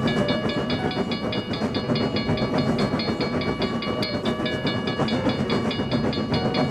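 Railroad crossing alarm ringing in a fast, even repeat, about four to five strikes a second, over the steady rumble of a passing train.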